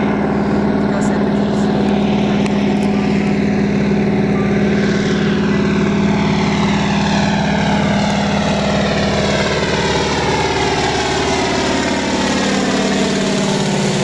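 A propeller-driven aircraft's engine drones steadily. A slow, falling whooshing sweep runs through the higher part of the sound as the aircraft moves.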